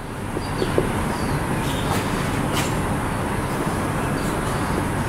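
A steady rushing mechanical noise swells in just before and holds level throughout, with a few faint strokes of a marker on a whiteboard.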